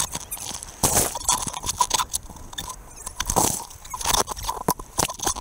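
Whitewater from breaking waves splashing over a handheld action camera in the surf: irregular bursts of rushing, crackling water noise with sharp knocks and splashes against the camera.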